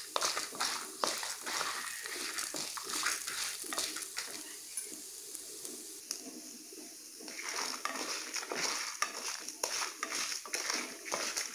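A wooden spatula stirring and scraping chana dal, urad dal and dried red chillies as they roast in a little oil in a non-stick kadai: quick rattling scrapes over a faint sizzle, with a short lull about halfway through.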